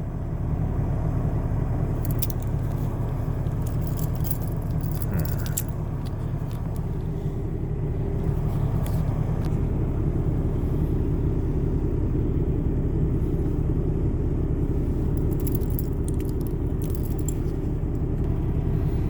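Steady low vehicle rumble, with scattered metallic clicks and jingling as a pair of handcuffs is handled and its ratchet worked, in small clusters a few times.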